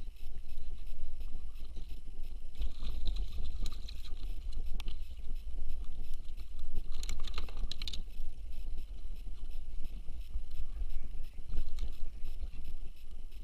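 Low, fluctuating rumble of moving water against the camera, with scattered faint crackles and clicks.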